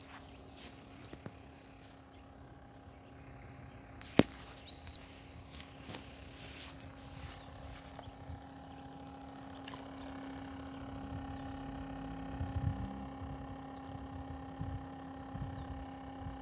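Steady outdoor background of insects chirring, with the low steady hum of a small aquarium air pump on the fish bucket. A single sharp knock comes about four seconds in, and a few low thumps follow about twelve seconds in.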